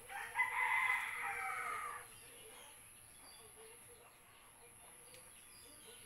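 A rooster crowing once, a single call of about two seconds that drops slightly in pitch at the end.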